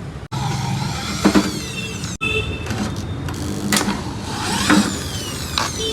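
Cordless electric screwdriver whirring as it backs out screws on a washing machine panel, its pitch rising and falling as the motor speeds up and slows down, with several sharp clicks.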